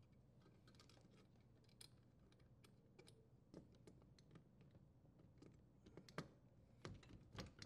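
Faint, irregular clicks and ticks of a flathead screwdriver tip pushing on the tabs of a dishwasher's wire strain relief nut, tightening it in the electrical junction box; the clicks come a little stronger near the end.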